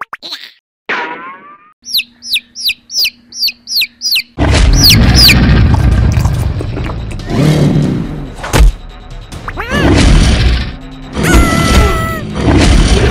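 A fast run of bird chirps, about three a second, followed by loud soundtrack music with a sharp hit about eight and a half seconds in.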